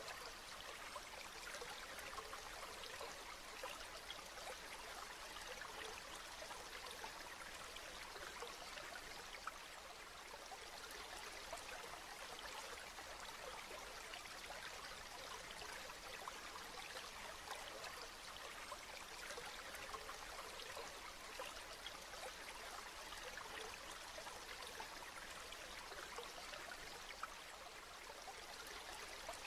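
Steady rain falling, a continuous soft hiss of many fine drops pattering without letup.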